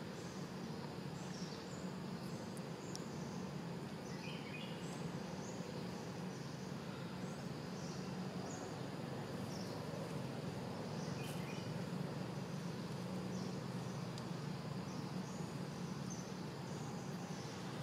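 Outdoor forest ambience: a steady low background rumble with scattered short, high chirps, and a pair of slightly lower chirps about four seconds in and again about eleven seconds in.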